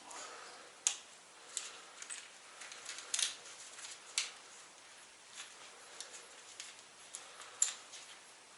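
Hand handling of a ratchet strap as its webbing is rolled up: faint rustling with a few scattered light clicks and taps.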